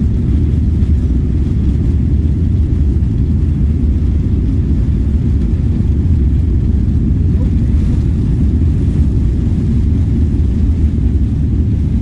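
Airliner cabin noise in flight: a loud, steady low rumble.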